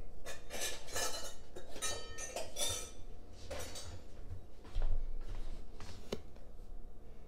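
Metal measuring cups clinking and scraping while granulated sugar is scooped out of a plastic container and poured into a stainless measuring cup, a run of gritty scrapes in the first few seconds and a sharp clink about six seconds in.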